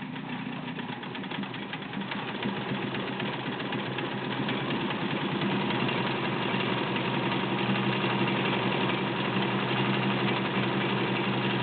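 White Selectronic Model 804 all-metal sewing machine with a 1.6-amp motor running, sewing a narrow ball-stitch pattern. It speeds up over the first few seconds, then runs steadily with rapid needle strokes.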